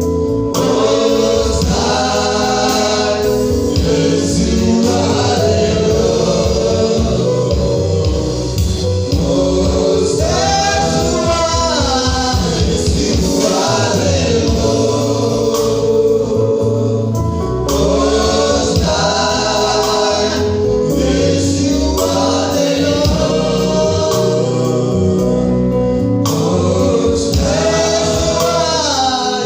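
Gospel worship music: a choir singing a melody over a steady bass and beat.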